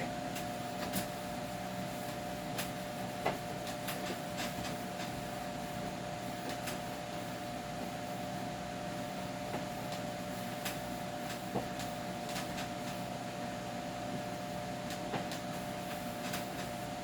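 A steady mechanical hum holding two constant pitches, with scattered light clicks and knocks of containers and items being handled.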